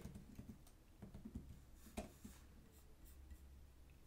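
Faint, scattered clicks of computer keyboard keys being typed on.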